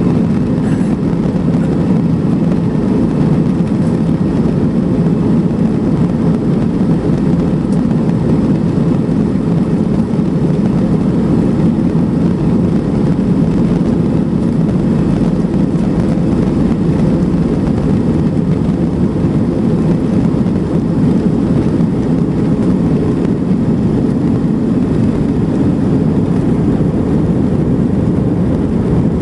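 Steady low rumble of cabin noise inside an Airbus A320-family airliner, its jet engines running, holding level without rising.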